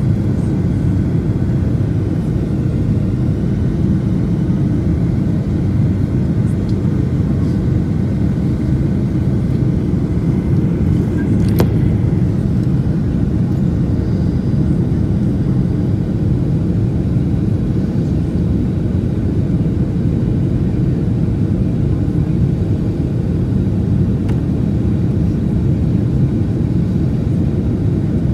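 Steady low rumble of jet engines and rushing air inside an airliner cabin, heard from a window seat beside the engine on the descent to landing. A single sharp click comes about twelve seconds in.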